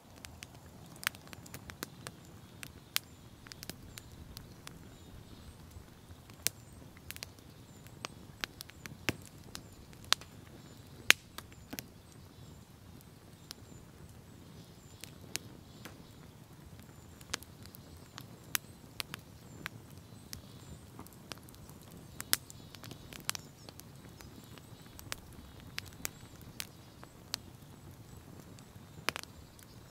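Outdoor forest ambience: a steady low rumble with irregular sharp ticks and taps, roughly one or two a second.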